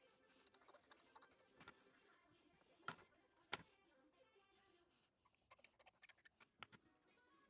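Faint, irregular small clicks and taps of metal tools on the parts of a pocket-watch movement being serviced, with two sharper clicks around the middle and a quick run of ticks near the end.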